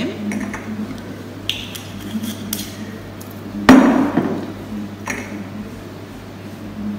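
Light glass clinks, then about 3.7 s in a single loud knock with a short ring as a glass bottle is set down on the bar counter, heard played back through a room's speakers over a steady low hum.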